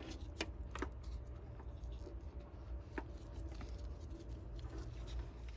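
Wires and a small plastic wire connector being handled, with a few light clicks and rustles, over a steady low rumble.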